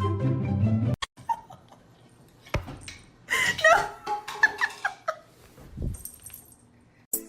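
A pet animal calling in a short run of rising and falling cries, a little after a single sharp knock; background music cuts off just before.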